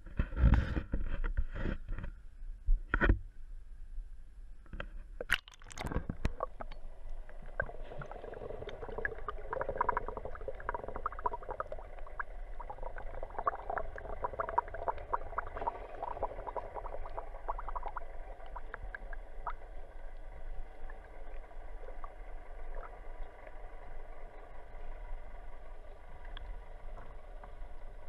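Knocks and splashes as a GoPro on a pole is plunged into the water beside a small sailboat's hull. Then the muffled underwater sound heard through the camera's housing: a dense crackle of small clicks and bubbling, busiest about halfway through, settling to a steady wash.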